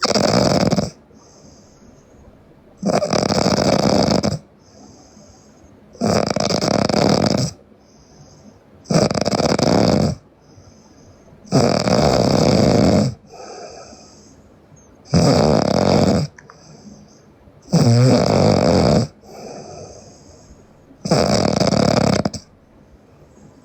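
A young woman snoring loudly in her sleep, with eight loud snores, one about every three seconds, each lasting about a second. A softer breath sound comes between the snores.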